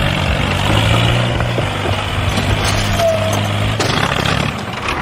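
A small motor running steadily with a low, even hum, over a rough mechanical rattle and a few sharp clicks.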